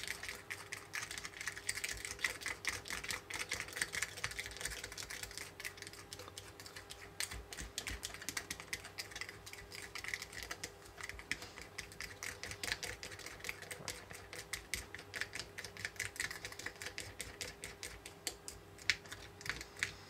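Small plastic stirrer scraping and clicking rapidly against the inside of a small plastic cup, mixing Konapun powder and water into a thick red candy pizza sauce. A faint steady hum sits underneath.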